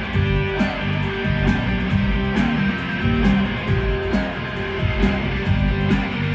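Live rock band playing an instrumental passage: electric guitars over bass and drums, with no vocals.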